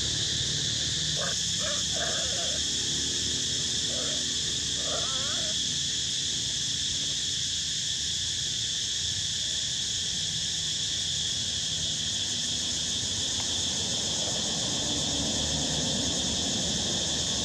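Steady high insect chorus of cicadas or crickets, with a few short squeaky animal calls about one to five seconds in.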